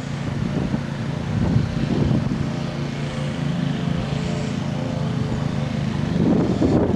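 An engine drones steadily over gusting wind on the microphone, the wind picking up again near the end.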